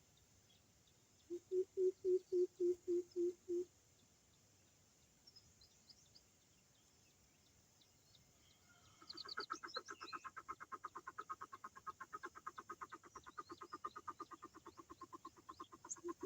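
Coucal calling: a series of deep, evenly spaced hoots, about four a second, near the start, then from about nine seconds in a longer, faster run of pulsing notes that carries on to the end. Faint small-bird chirps sound in the background.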